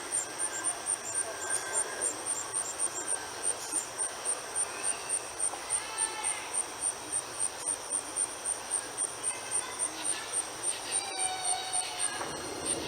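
Insects chirping: a high-pitched pulse repeating evenly about three times a second over a steady high trill.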